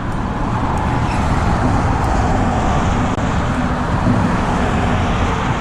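Steady road traffic noise from cars driving over the bridge.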